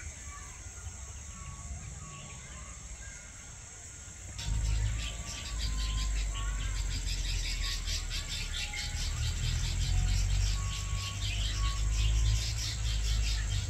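Outdoor ambience of insects and birds: a steady high insect drone with short, clear bird notes. About four seconds in, a louder, rapid insect-like pulsing starts over a low rumble.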